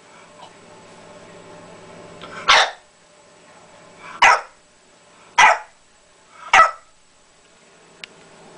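Bulldog puppy giving four short, harsh vocal bursts, each about a third of a second long and spaced a second or two apart.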